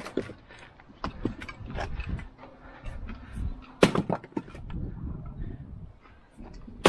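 Split pieces of dry ponderosa pine knocking and clattering against each other. There is a sharp, loud crack a little before four seconds in and another at the very end, the strikes of a splitting maul on the wood.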